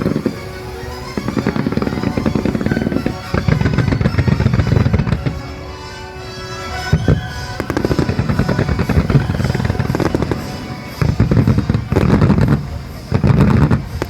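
Fireworks bursting and crackling in several loud volleys, with music playing underneath.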